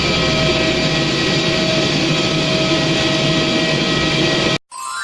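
Jet airliner engines running steadily: an even rushing noise with several high steady whining tones through it. It cuts off suddenly about four and a half seconds in.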